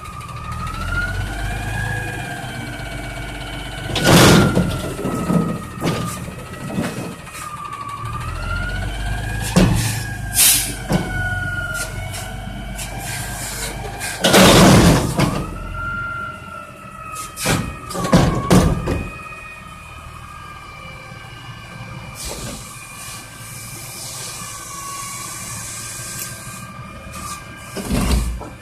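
Garbage truck working a pickup: its hydraulic pump whines steadily, the pitch rising and falling slowly with the engine. The whine is broken by several loud metal bangs and clanks, and a stretch of hissing comes near the end.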